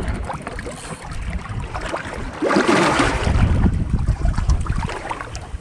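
Wind buffeting the microphone and seawater sloshing against the side of a small boat, with a louder splash of water about two and a half seconds in that lasts about a second.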